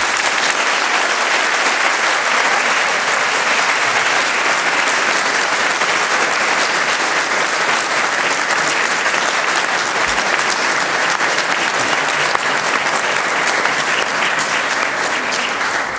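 A large audience applauding steadily at the end of a talk.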